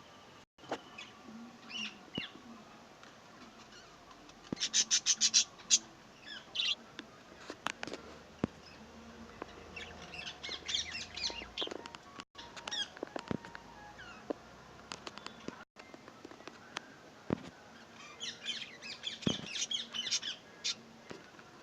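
Pet parrot chirping and squawking in three bouts of quick, repeated high calls, with scattered sharp clicks between them.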